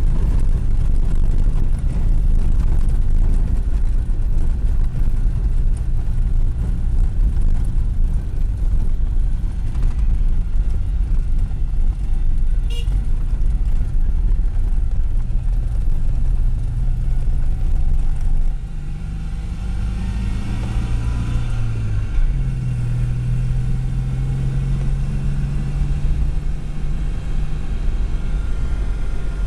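Citroën Dyane 6's air-cooled flat-twin engine running on the move, heard from inside the cabin along with road noise. About two-thirds of the way through the engine note drops away, then climbs in pitch and settles again.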